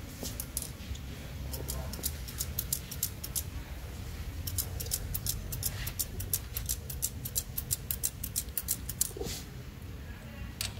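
Runs of quick, light metallic clicks, several a second, from hardware being worked as a coilover shock's lower end is bolted to the rear axle bracket. There is a shorter run early on and a longer one through the middle, over a steady low hum.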